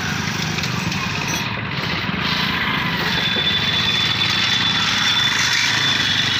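Road traffic on a highway: engines and tyres of a passing car and a motorbike, a steady hum, with a thin high whine from about three seconds in.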